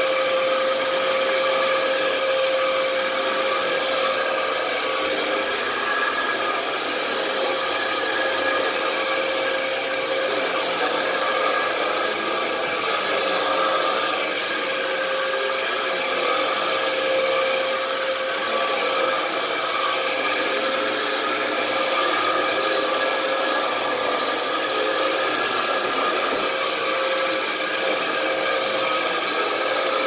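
Dyson DC07 upright vacuum cleaner running steadily while being pushed over a rug: a continuous motor whine with several held tones over a rushing airflow noise.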